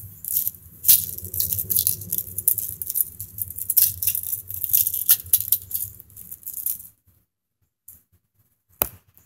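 Small metal airgun ammunition rattling and clicking in a tin for about seven seconds, then stopping, with one sharp click near the end.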